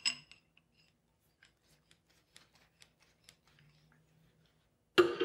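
Faint, light metal ticks as an end cap is screwed onto a stainless steel chamber tube by hand. A sudden loud sound breaks in near the end.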